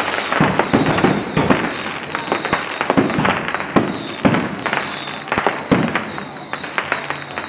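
Fireworks bursting overhead: a dense, irregular run of bangs and crackles, thinning a little toward the end.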